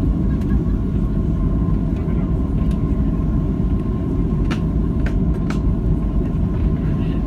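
Inside the cabin of a Boeing 737-700 taxiing: steady low rumble of its CFM56-7B turbofans at taxi power, with a steady whine over it. Three short clicks come about two-thirds of the way through.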